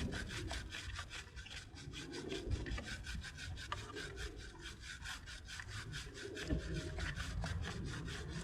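Three-sided bristle chain brush scrubbing a motorcycle drive chain soaked in chain cleaner, in quick, even back-and-forth strokes as the wheel is turned by hand.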